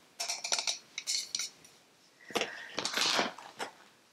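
A plastic bottle and its packaging being handled: a quick run of light clicks and clatter, then a longer rustle a bit over two seconds in.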